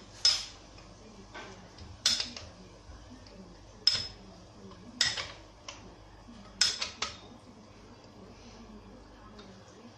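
Sharp metallic clinks of a steel combination spanner being fitted onto and turned on the main bearing cap bolts of a Hyundai Atos engine block, one every second or two for about the first seven seconds.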